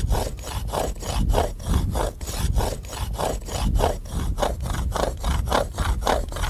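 Toothed copper saw blade rasping back and forth across stone in quick, even strokes, about four a second. The soft copper teeth make little headway in the rock.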